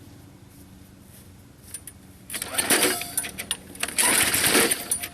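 Two pulls on a junk push mower's recoil starter, about a second and a half apart, each turning the small engine over without it catching.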